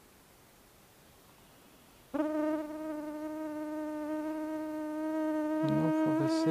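A flying insect buzzing close to the microphone, starting abruptly about two seconds in and holding a steady pitch.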